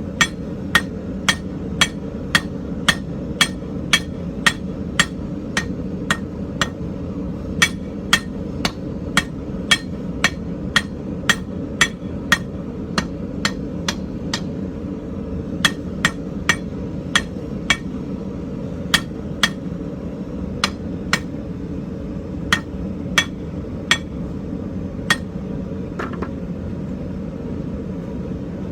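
Hand hammer striking an ornamental iron bar on an anvil, flattening the bar's end for a fork: sharp, regular blows about two a second, with a short pause midway, then sparser blows that stop a few seconds before the end. A steady low rumble runs underneath.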